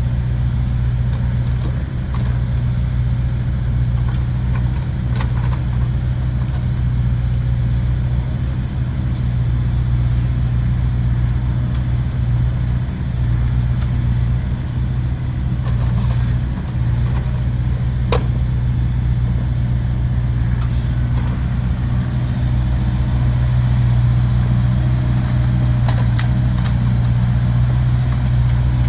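An engine running steadily at idle with a low hum, with a few short sharp knocks over it.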